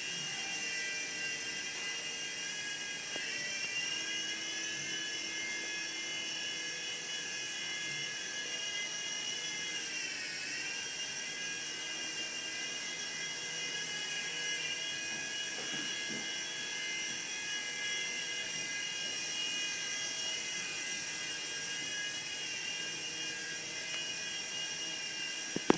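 Small electric motors and rotors of a toy RC helicopter running with a steady high-pitched whine, the pitch dipping briefly and recovering about ten seconds in as the motor speed changes.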